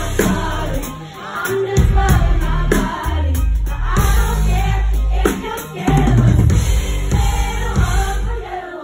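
Live pop band playing, with a female lead vocal over heavy bass and drums.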